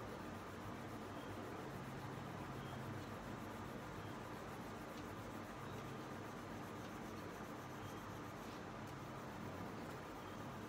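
A crayon rubbed back and forth over paper, shading in a large area with steady scratchy strokes.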